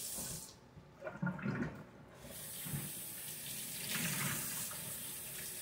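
Kitchen sink tap running water over silver being washed with soap. The water sound drops away about half a second in, with a few light knocks, and comes back about two seconds in.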